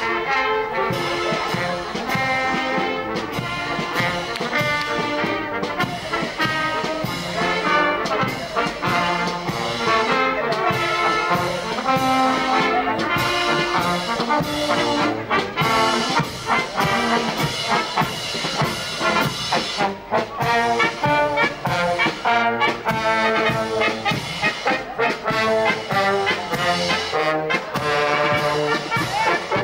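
Marching brass band playing a tune as it walks by, with trombones and trumpets to the fore.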